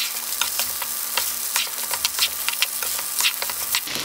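Vegetable fried rice with egg sizzling in a hot skillet, stirred and scraped with a plastic slotted spatula. It is a steady hiss with frequent irregular scraping ticks.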